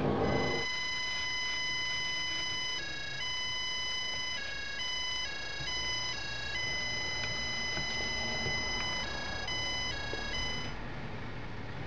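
Stanley FatMax electronic stud finder sounding a continuous beep as it is held on the drywall over a stud, switching back and forth between two pitches about seven times, then cutting off near the end.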